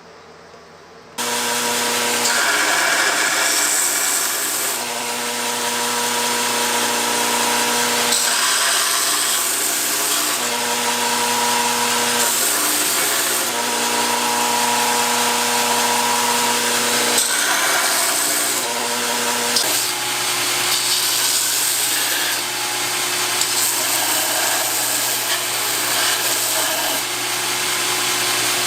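An electric power tool switches on about a second in and runs steadily while grinding or sanding, a motor hum under a wide hiss that shifts in pitch a few times as the load changes.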